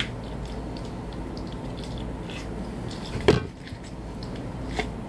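Utensils tapping and scraping on dishes during a meal, with one louder knock about three seconds in.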